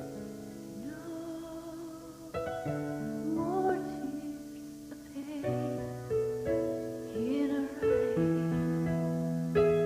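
Music: held chords and notes that change every second or so, with a few wavering glides of pitch.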